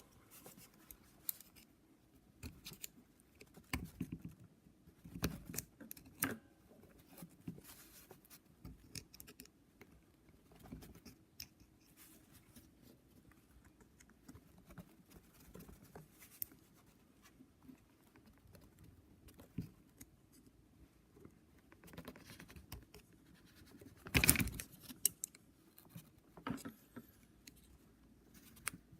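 Scattered light metal clicks and scrapes of small parts being worked by hand onto a new piston, with a louder clatter of handling near the end.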